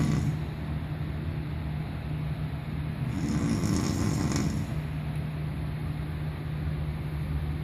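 A person snoring in their sleep. One snore lasting under two seconds comes about three seconds in, with the end of the previous snore at the very start. A steady low hum runs underneath.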